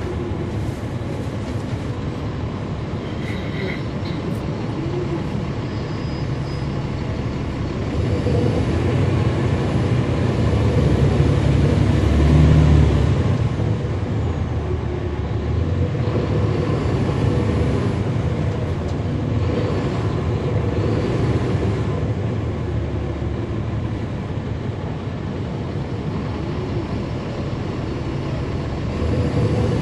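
Cabin sound of a NABI 416.15 transit bus under way, its Caterpillar C13 ACERT diesel engine running with the engine cooling fans on. The engine swells louder about eight seconds in, peaks around twelve seconds as the bus pulls, then eases back, and climbs again right at the end.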